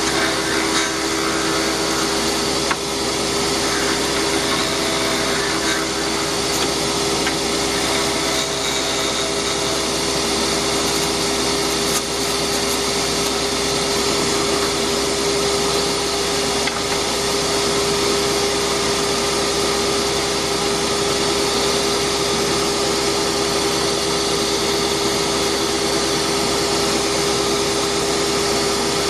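Delta wood lathe running steadily, a constant motor hum under an even rushing whir, with a few faint knocks.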